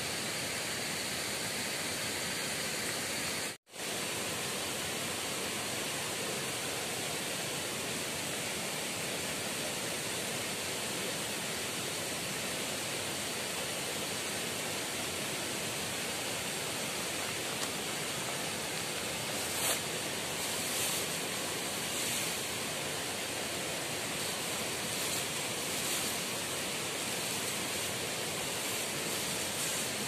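Steady rush of water falling from a dam wall into the pool below. It cuts out for an instant about three and a half seconds in.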